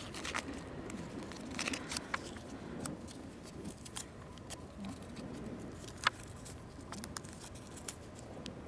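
Kite sail and tail being handled as a knot is tied, giving soft rustling and crinkling with scattered small clicks and one sharper click about six seconds in.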